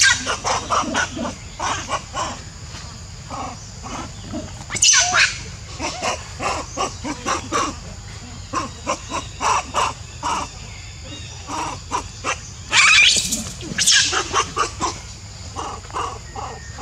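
Macaques squealing and screeching: a run of short, sharp calls throughout, with two louder, longer screams about five seconds in and again around thirteen seconds.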